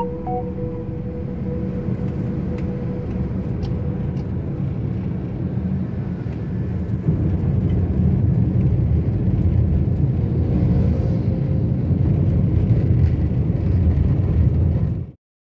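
Engine and road noise inside a moving car's cabin, a steady low rumble that grows louder about halfway through and cuts off suddenly near the end.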